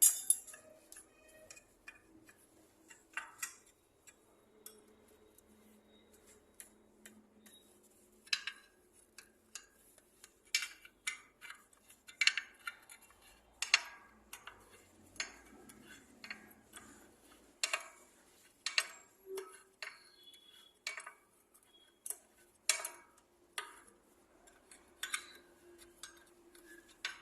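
Metal hand tools clicking and clinking on the tractor's clutch assembly as the pressure plate bolts are undone with a wrench. The sharp clicks come irregularly, in clusters, through the whole stretch.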